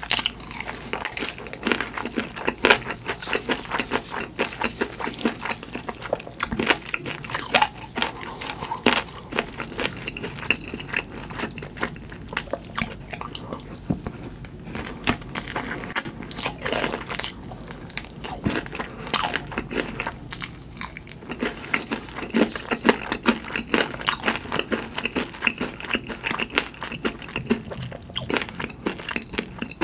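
Close-miked biting and chewing of crispy fried food, with many sharp crunches in quick succession.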